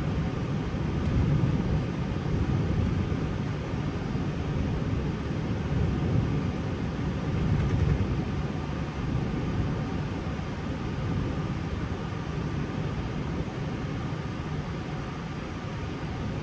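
Steady low rumble and hiss inside the cockpit of an Airbus A320 taxiing on the ground with its engines running.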